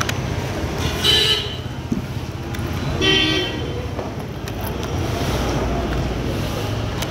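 A horn toots twice, short blasts about two seconds apart, over a steady low rumble.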